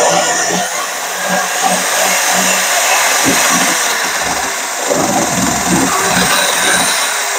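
Corded electric drill running steadily with its bit working in a bolt hole in a pickup bed floor, grinding metal away to open up the hole.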